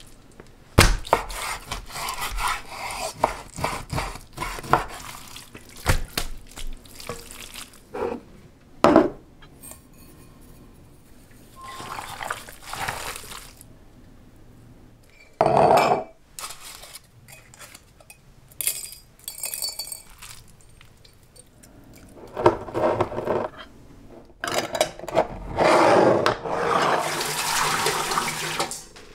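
Kitchen prep sounds: knocks and clicks of raw beef being handled and cut on a wooden cutting board, then water poured from a bowl into a stainless steel autoclave pot near the end.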